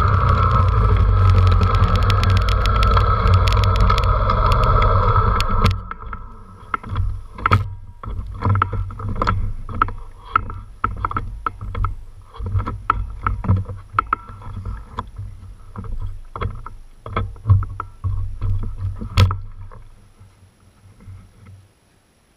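Dirt bike engine running loud and steady for about six seconds, then dropping off abruptly. After that a low engine rumble continues under many irregular knocks and rattles as the bike rolls over rough ground, fading out near the end.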